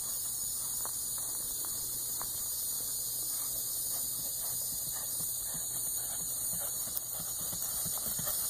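Faint hoofbeats of a Tennessee walking horse mare gaiting on grass, growing clearer near the end as she comes closer, over a steady hiss and a low hum.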